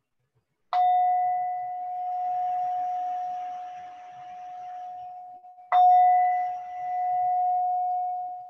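Meditation bell struck twice, about five seconds apart. Each strike rings on in a long, clear tone that swells and fades slowly as it decays, marking the end of the meditation practice.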